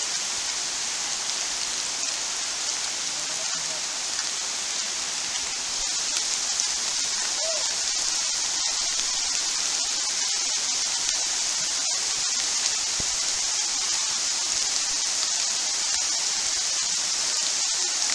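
Heavy tropical rain falling on rainforest foliage: a steady, even hiss that gets a little louder about six seconds in.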